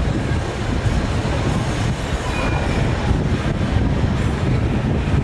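Aboard the Disneyland tram: a steady low rumble with rattle, the noise of the tram vehicle running, with a brief faint squeal about two and a half seconds in.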